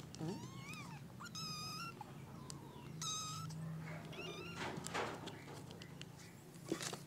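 A kitten meowing in short, high-pitched calls, about three of them in the first four seconds, the first rising and falling. Rustling noises follow about five seconds in and near the end.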